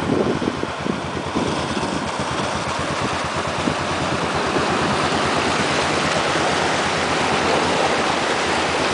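Toyota Tundra pickup and its utility trailer ploughing through deep floodwater: a low engine rumble under steady rushing and splashing of water that swells from about a second and a half in as the truck passes close.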